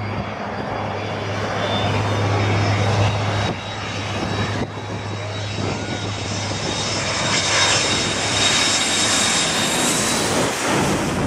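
Jet airliner on low final approach flying directly overhead. A high, steady turbine whine sits over a broad rush of jet engine noise, both growing louder as the aircraft closes in, and they are loudest as it passes above near the end.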